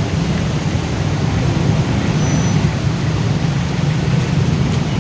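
A steady low rumble without change or break, with no voices.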